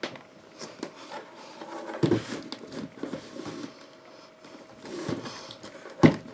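Handling noise: irregular rustling and rubbing with a few knocks, the sharpest one about six seconds in.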